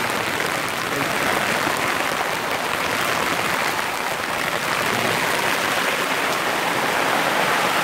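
Heavy rain falling steadily on a plastic tarp overhead and splashing on wet concrete pavement.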